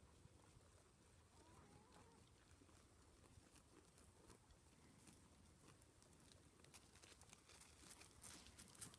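Near silence, with faint rustling and crisp clicks that come more often in the last few seconds: alpacas grazing, tearing off grass.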